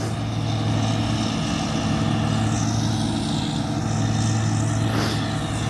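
Combine harvester engine running steadily at a constant speed, a continuous low hum.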